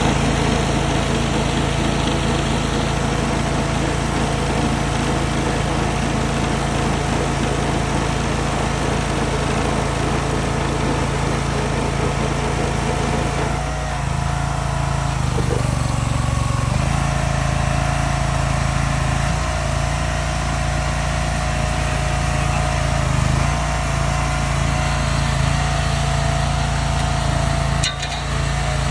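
Small engine running steadily, its pitch shifting a little about halfway through.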